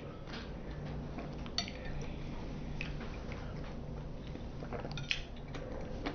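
A few light clicks and clinks of eating utensils and dishes, scattered and brief, over a faint low hum.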